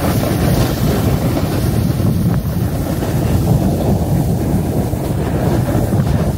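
Wind buffeting the microphone as a snowboarder rides fast down a groomed run: a loud, steady, low rushing with no distinct events.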